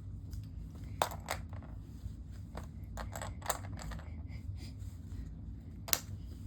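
Plastic Lego pieces being handled and set down, a handful of sharp clicks scattered over a low steady hum.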